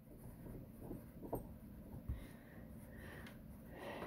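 Faint scratching of a wooden pencil writing on paper, with a couple of short soft ticks.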